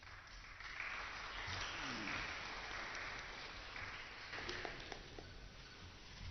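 A small audience applauding; the clapping builds about half a second in and dies away near the end.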